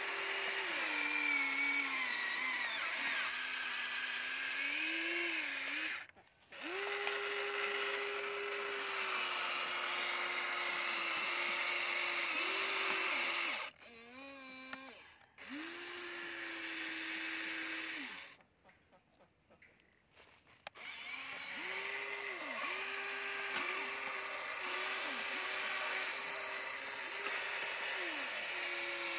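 Electric motors of a Huina remote-control toy excavator whining as the boom, arm and bucket work, running in stretches of a few seconds with short stops. The pitch dips and slides as the motors change speed and load.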